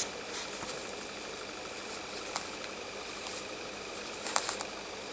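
Steady faint hiss with a few soft clicks and one brief scrape about four seconds in: a glitter nail polish brush and bottle being handled between strokes.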